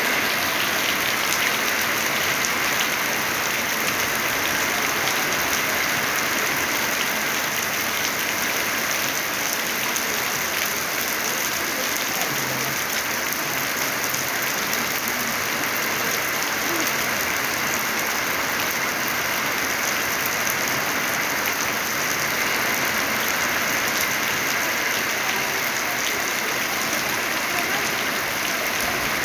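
Heavy rain falling steadily on a corrugated metal shed roof and the yard around it, a constant even hiss that neither builds nor eases.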